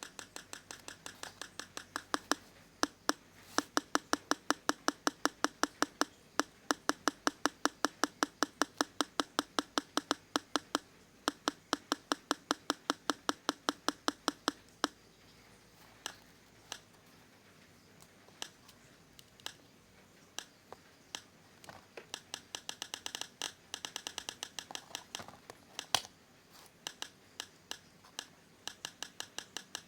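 Sharp, evenly spaced clicking at about five clicks a second. About halfway through it turns into sparse, irregular clicks, then speeds up into another fast run near the end.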